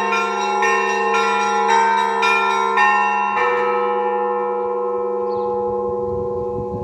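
Orthodox monastery bells ringing: smaller bells struck in quick succession, about two strokes a second, over the steady hum of a large bell. About halfway through the strokes stop with a last stroke, and the bells ring on and slowly fade.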